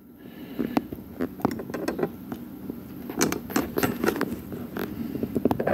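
Handling noise from a camera being adjusted and lined up: irregular clicks, taps and knocks, thickest about three seconds in.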